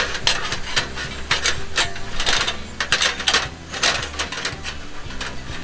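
Irregular metal clicks, clinks and rattles as a stainless steel heat-shield table is handled and fitted down over a SOTO ST-330 single gas burner, the steel plate and folding legs knocking against the burner's metal parts.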